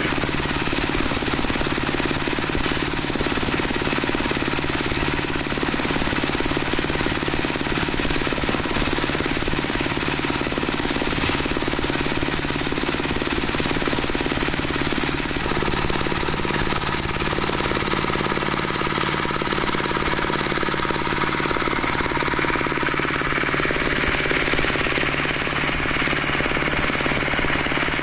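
Broom-handle dowel machine running steadily, its spinning cutter head shaping wooden stock into round handles, a loud continuous machine noise with a dense fast chatter. The tone shifts slightly about halfway through.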